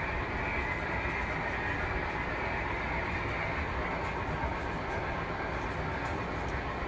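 Model train running on the layout track: a steady running noise of the motor and the wheels on the rails, with a few faint ticks.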